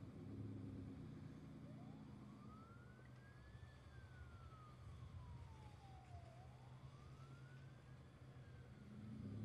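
Faint emergency-vehicle siren wailing, rising and falling slowly twice, over a low steady hum.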